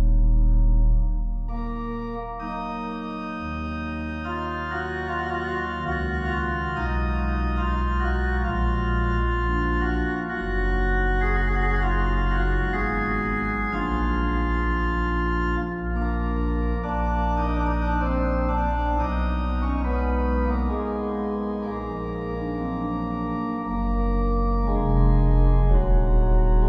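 Slow, calm organ music: sustained chords held for several seconds at a time over deep held bass notes, changing smoothly from one chord to the next.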